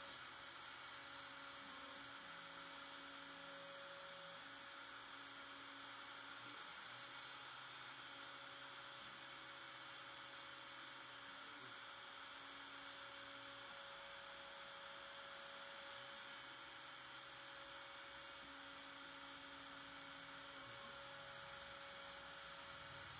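LongMill CNC router milling wood with an eighth-inch end mill on an area-clearance pass: a faint, steady spindle hum, with lower motor tones that shift and change every few seconds as the machine moves along its toolpath.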